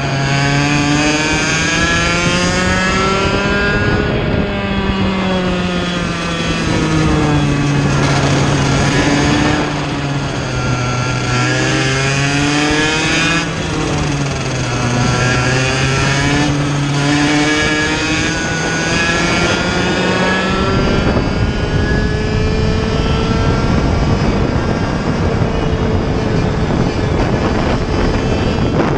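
Onboard Vortex Mini Rok 60cc two-stroke kart engine, its pitch climbing as it accelerates out of corners and dropping under braking, several times over. About two-thirds of the way through, the engine note gives way to a steady rush of wind on the microphone as the kart runs flat out down the straight.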